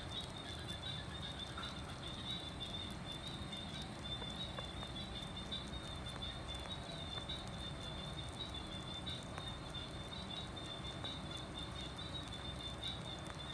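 Sugar gliders chewing and licking at a piece of cooked pork, faint small wet clicks, over a steady high-pitched trill and a low hum.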